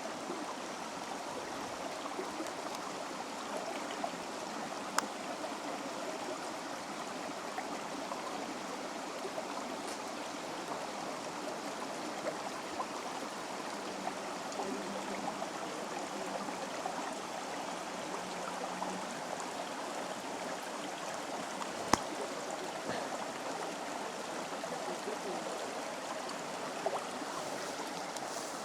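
Water flowing steadily like a running stream, with a few sharp clicks, the loudest about three-quarters of the way through.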